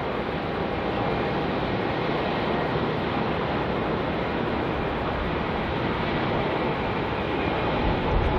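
Steady rushing jet-engine noise from an Airbus A350-941's Rolls-Royce Trent XWB engines as the airliner lands, with a faint steady whine in it, mixed with wind on the microphone.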